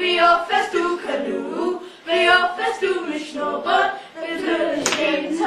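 Several voices singing together unaccompanied, a cappella.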